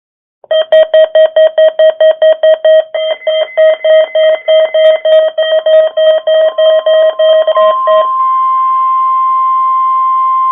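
Weather radio alert beeping rapidly, about four beeps a second, then giving way about eight seconds in to the steady NOAA Weather Radio warning alarm tone (1050 Hz) that signals the test of the warning alarm.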